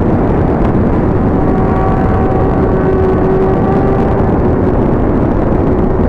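Sport motorcycle engine running at a steady cruising pitch under a heavy rush of wind on the microphone.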